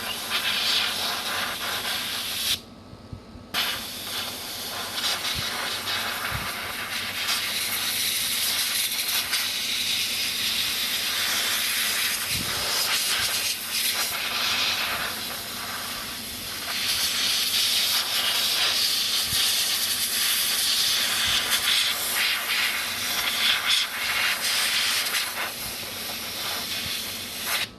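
WD-40 aerosol spray hissing almost without a break onto a graphics card's circuit board, flushing dust and rust out from under the GPU chip, with one short pause about two and a half seconds in.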